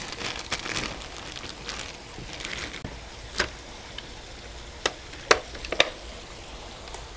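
Plastic dry-aging bag crinkling as it is handled, then four sharp clicks as the FoodSaver vacuum sealer's lid is pressed down and latched shut.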